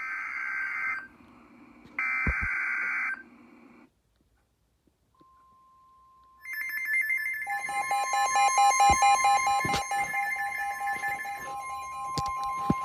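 Emergency Alert System broadcast on NOAA Weather Radio for a flood warning: two screeching SAME digital header bursts, each about a second long, then after a short pause the steady 1050 Hz weather radio alert tone. From about 6.5 s a second, louder electronic alarm sounds over it, with rapid pulsing tones, and a few sharp clicks.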